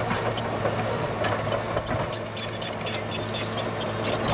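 Caterpillar 963C tracked loader's diesel engine running steadily as the machine pushes dirt with its bucket, with scattered light clinks from the steel tracks.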